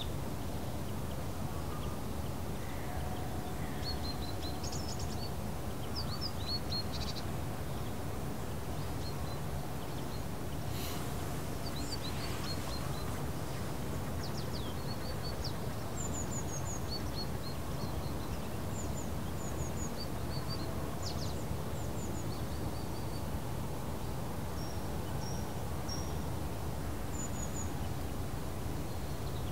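Scattered short, high chirps of small birds over a steady low background rumble, with a brief hiss about eleven seconds in.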